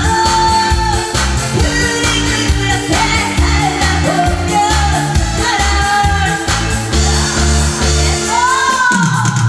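A singer performing a song live over a loud amplified backing track with a steady heavy beat, as in a Korean pumba stage show; a sung note swoops upward near the end.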